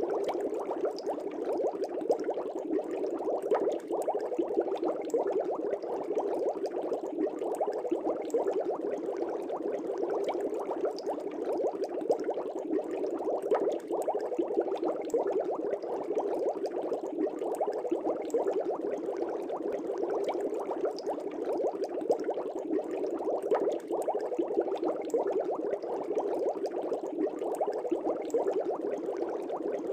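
Aquarium water bubbling steadily: a dense, constant stream of air bubbles churning the water, with many small pops and no change in pace.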